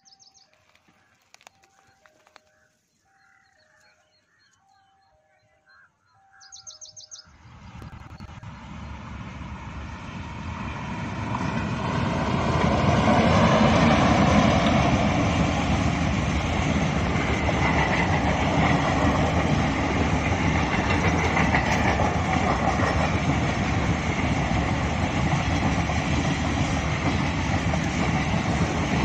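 Indian Railways passenger express hauled by a WAP-4 electric locomotive approaches, with its running noise swelling from about seven seconds in. It grows loud by about thirteen seconds and holds steady as the coaches' wheels roll past on the rails. Before that it is quiet apart from faint, repeated two-note bird calls and a few chirps.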